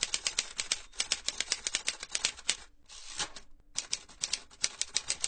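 Fast, even run of sharp key-like clicks, about seven a second, pausing for about a second in the middle.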